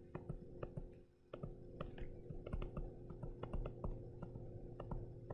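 Digital pen stylus writing on a touchscreen, a string of faint irregular taps and clicks over a steady low hum.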